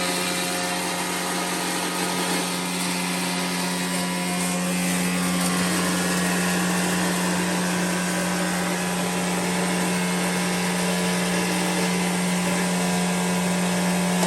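Cumberland 5 HP plastic granulator running steadily, a constant low hum under a loud even whirring noise.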